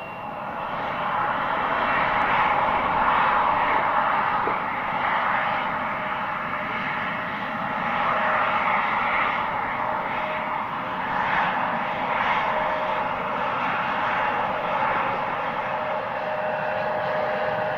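Turbofan engines of an Embraer regional jet running, a broad rushing noise with a steady whine through it. It swells over the first couple of seconds, then holds with slow rises and falls.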